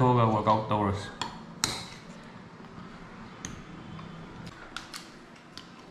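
A man's voice briefly at the start, then a metal spoon tapping and clinking against a ceramic bowl while eating: a handful of sharp, spaced-out clinks, the loudest about a second and a half in.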